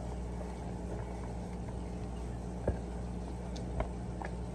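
A spatula folding a thick pudding mixture in a glass mixing bowl, with two short knocks against the glass about a second apart, over a steady low hum.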